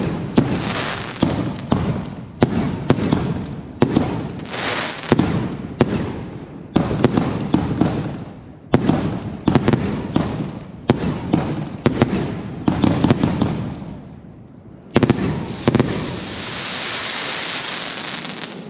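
Fireworks display: a rapid series of sharp shell bursts, each trailing off into a rumble. A last big bang about fifteen seconds in is followed by a steady hissing crackle.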